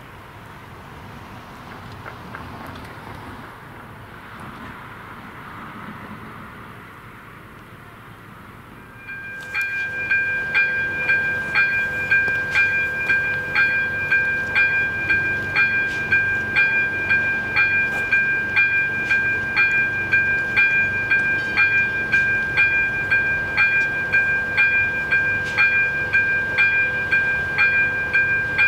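AŽD ZV-02 electronic level-crossing bell starting about nine seconds in. It rings in a steady, evenly repeating rhythm over a held high tone, the warning that the crossing is active for an approaching train. Before it starts there is only soft outdoor road noise.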